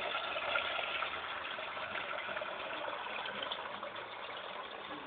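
Water tap running in a steady rushing stream.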